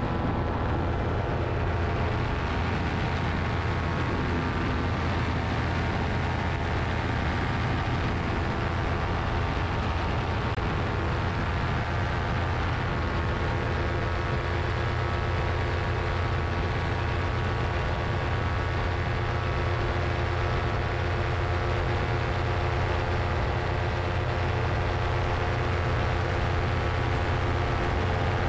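Paramotor engine and propeller running steadily in flight, heard close up from the pilot's harness: an even, unchanging drone with a strong low hum.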